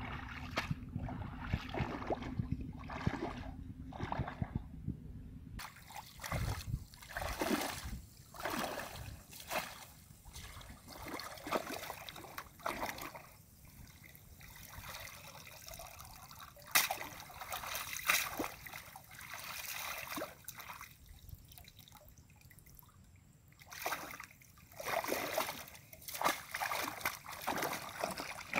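Shallow muddy water splashing and sloshing in irregular bursts as a woven bamboo fishing basket is scooped through it and lifted out, with water trickling as it drains from the basket.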